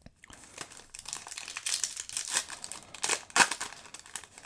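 Foil wrapper of a Yu-Gi-Oh! booster pack crinkling and tearing as it is opened by hand, with a sharp, loud crackle about three and a half seconds in.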